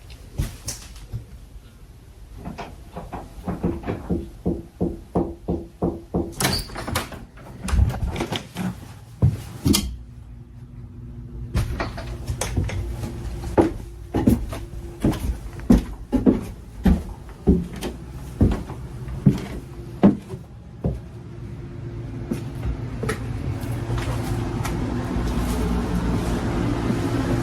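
Footsteps going down into a basement: a run of regular thuds, about two a second, a short pause, then more thuds, with door sounds. A steady low rumble grows louder near the end.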